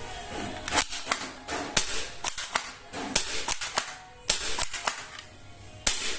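Toy gun firing a rapid, irregular string of about a dozen sharp shot sounds, the last one near the end.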